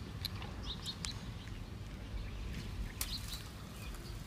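A few short, high bird chirps, about half a second in and again around three seconds, over a steady low rumble of outdoor noise.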